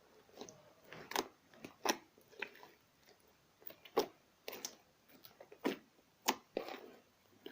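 Slime being played with by hand, giving irregular sharp pops and clicks, about one or two a second, some followed by a short wet smear.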